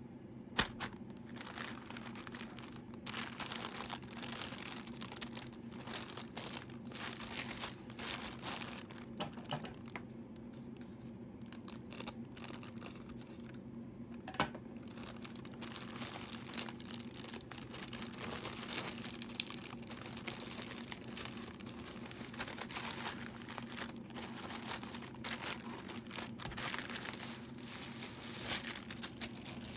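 Packaging of new art supplies crinkling and tearing as it is unwrapped by hand, with scattered clicks and a sharp tap about half a second in, over a steady low hum.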